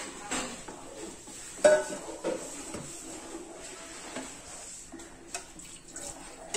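Milk pouring into a steel pot of payasam, then a metal spoon stirring and scraping in the pot, with clinks against its side; one loud ringing clink comes a little under two seconds in.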